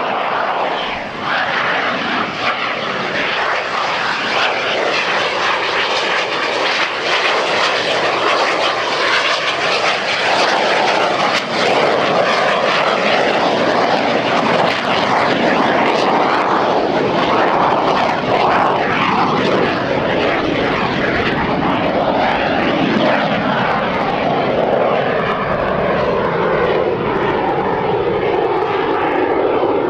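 Aermacchi MB-339 jet trainer's Rolls-Royce Viper turbojet, loud and continuous as the jet flies its display. In the last several seconds the engine whine falls in pitch as the aircraft passes.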